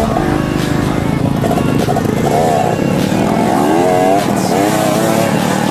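Dirt-bike engine revving up and down several times, its pitch rising and falling in repeated surges.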